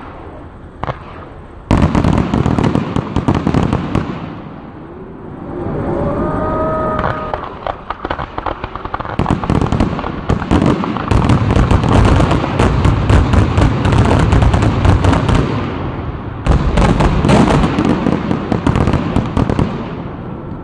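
Fireworks going off in rapid crackling volleys of many pops: a short volley about two seconds in, then a long run from about nine seconds in, a brief pause, and another volley near the end.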